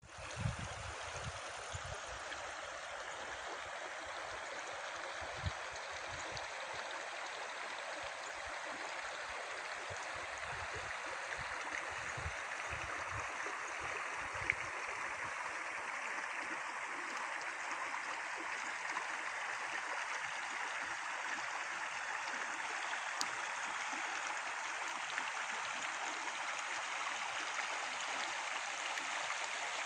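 Shallow mountain stream flowing over a stony bed: a steady rushing of water that grows slightly louder near the end. A few brief low thumps in the first half.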